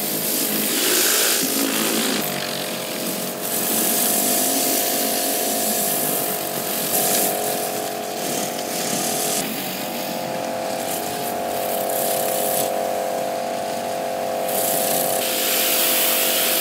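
Kärcher K5 pressure washer running under load: a steady motor-and-pump hum under the continuous hiss of high-pressure water from its surface cleaner, set to the hard position, spraying onto stone paving slabs.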